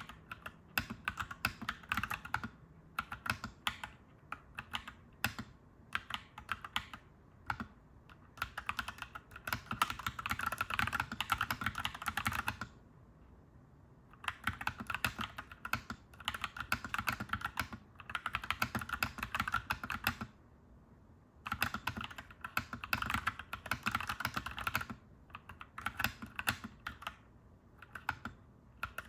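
Clacky mechanical keyboard being typed on in quick runs of keystrokes. The typing stops twice for about a second or so: once a little before the middle and once about two-thirds through.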